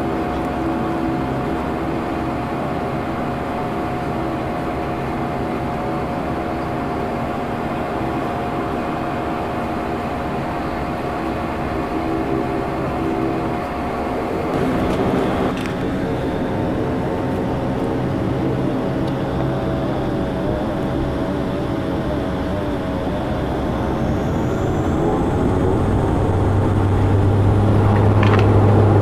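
Dash 8-Q400 turboprop engines and propellers droning steadily, heard from inside the cabin while the aircraft rolls on the ground. Near the end the engines power up: a faint whine rises and the drone grows louder and deeper.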